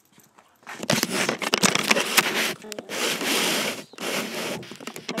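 Shirt fabric rubbing and scraping against the phone's microphone as the phone is handled, in three rough stretches with crackles and knocks, starting about a second in.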